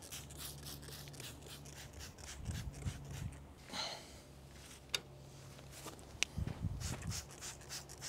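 Hand spray bottle squeezed over and over, a run of short hissing squirts of soapy water onto a window air conditioner's metal casing, thinning out midway, with two sharp clicks a little past the middle.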